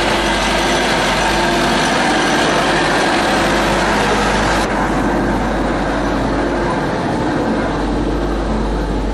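Small narrow-gauge diesel locomotive's engine running as it passes close by on the adjacent track, over the rumble of a narrow-gauge train. The hiss and treble drop away suddenly about halfway through.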